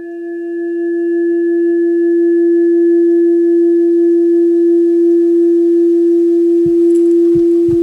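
A loud, steady, pure-sounding drone tone that swells up over the first two seconds and then holds, with a few low thumps near the end.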